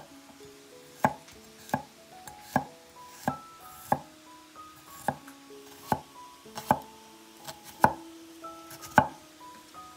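Chef's knife slicing garlic cloves on a wooden cutting board: about ten sharp knocks of the blade striking the board, roughly one a second.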